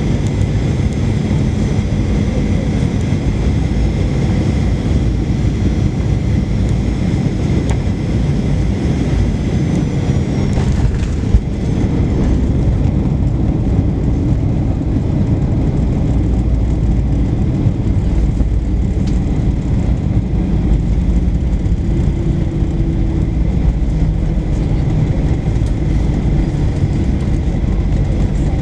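Cabin noise of a Boeing 737-800 landing, heard beside the wing: its CFM56-7B engines run with steady high tones over a loud rush of noise. About eleven seconds in there is a single sharp thump as the wheels touch down, and after it a heavier low rumble of the aircraft rolling down the runway.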